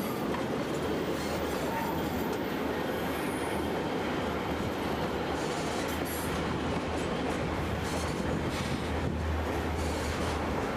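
Narrow-gauge passenger coaches rolling steadily over the rails on a curve, a continuous rumble of wheels on track with a faint high-pitched wheel squeal. The low rumble deepens near the end as the coach enters a rock tunnel.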